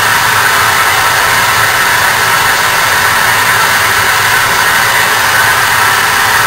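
JET benchtop wood lathe running at a steady speed with a small wooden ferro rod handle blank spinning on it, a loud even whir of machinery with a low hum beneath, unchanging throughout.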